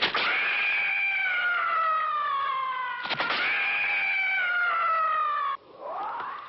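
Monster shriek sound effect: two long, harsh screeches, each with a sharp start and a slow downward slide in pitch over about three seconds, then a shorter cry that rises in pitch near the end.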